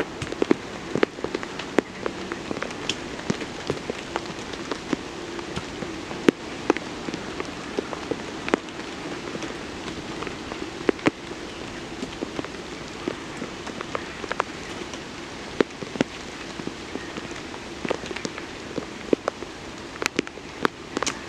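Rain falling on a tarp overhead, heard from beneath it: a steady hiss with many sharp, irregular taps of single drops striking the sheet.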